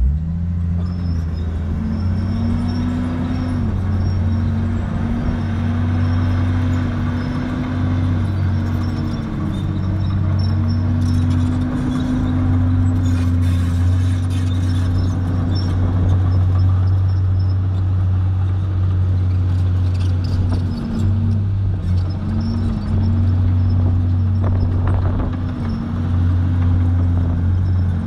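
Komatsu crawler bulldozer's diesel engine running under load while pushing soil, its note dipping and recovering again and again as the blade takes and sheds the load.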